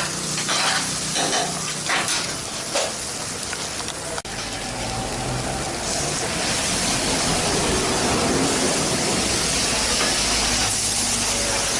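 Eggs frying on a hot flat griddle, a steady sizzling hiss that turns fuller and more even after a brief break about four seconds in.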